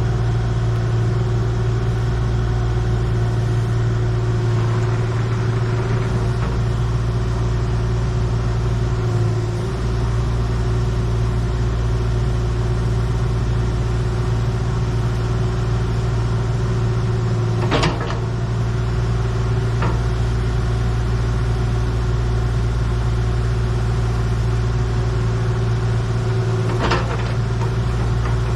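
Heavy equipment engine running steadily at an even speed, with a couple of sharp metallic knocks, one about two-thirds of the way in and one near the end.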